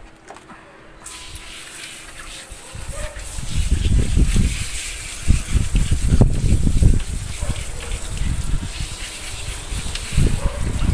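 Water hissing from a hose spray nozzle, starting suddenly about a second in, as a wet Maltese is rinsed during its bath. From a few seconds in, louder uneven splashing as the spray hits the dog and the plastic floor grid.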